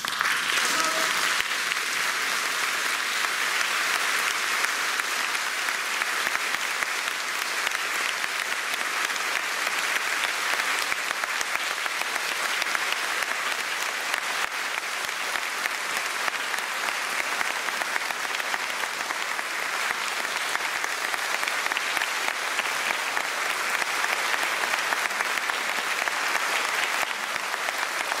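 Audience applauding steadily at an even level.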